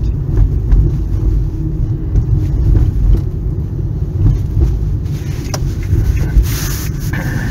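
Steady low rumble of a car's engine and tyres, heard inside the cabin while driving slowly. A brief hiss comes in about six and a half seconds in.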